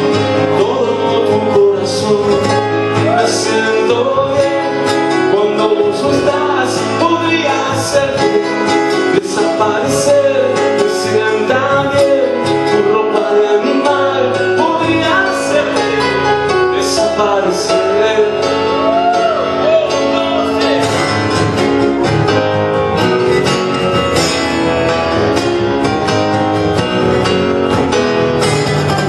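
Live song: a man singing, accompanied by strummed acoustic guitar and keyboard.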